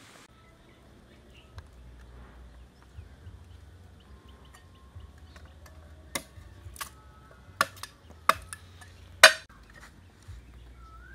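A long knife chopping green plant stalks against a flat stone slab: about seven sharp chops from about six seconds in, over some three seconds, the last one the loudest. Birds call faintly.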